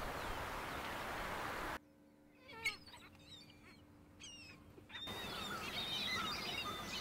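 Outdoor ambience in three edited segments: a steady rushing noise for the first couple of seconds, then a sudden drop to quieter air with a few falling bird calls and a faint steady hum, and from about five seconds in a busier chorus of chirping birds.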